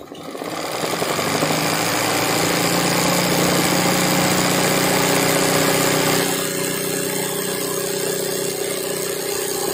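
Sewing machine running fast, stitching a hand-guided hooped embroidery. It picks up speed over the first second or so, runs steadily, then goes a little softer from about six seconds in.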